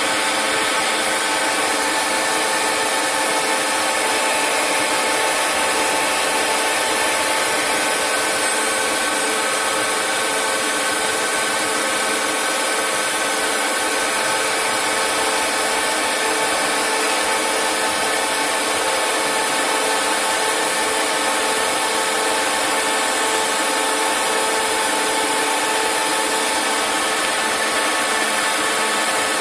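CNC lathe turning a metal velocity-stack trumpet: a steady cutting hiss over several steady whining tones from the running machine.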